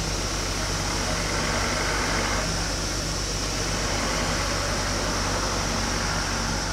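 An engine idling steadily: a constant low hum under general outdoor noise.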